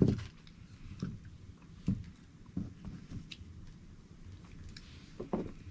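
A person chewing a mouthful of steak: soft, irregular mouth and chewing sounds about once a second.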